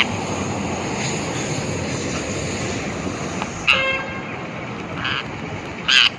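Parrot squawking three times in short, harsh calls over a steady noisy background rumble; the last call is the loudest.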